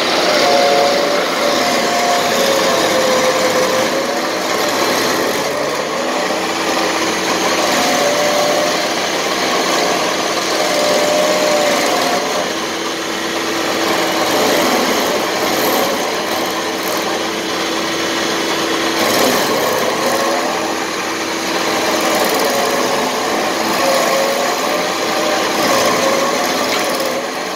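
Vermeer stump grinder running under load, its cutter wheel grinding into a stump and throwing wood chips: a loud, steady grinding noise over the engine, whose pitch dips and rises every few seconds.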